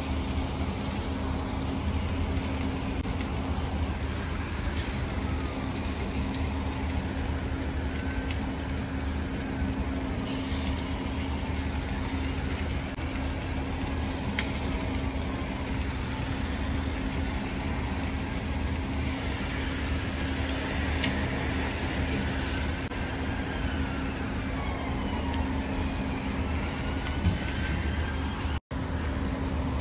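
Chicken sizzling on a charcoal grill over hot coals, a steady hiss over a constant low engine-like hum, with a few light clicks of a metal fork against the grate.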